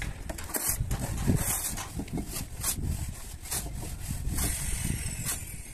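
Hand tools scraping and working wet cement mortar in short irregular strokes, about one or two a second, over a low steady rumble.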